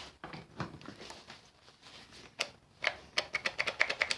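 A tool's switch being clicked over and over, sharp clicks coming fast in the second half, while the tool itself does not start because its outlet has no power.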